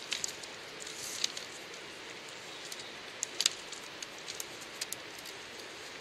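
Long willow rods being woven through upright willow stems: a steady rustle of the thin rods and branches dragging past each other, with scattered sharp clicks and snaps of twig knocking on twig, the sharpest about three and a half seconds in.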